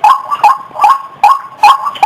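Female white-breasted waterhen calling: a fast string of sharp, evenly spaced 'wak' notes, about five in two seconds.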